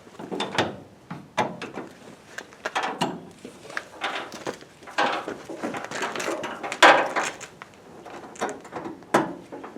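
Irregular knocks, clicks and scrapes of parts and tools being handled, with one sharp knock about seven seconds in.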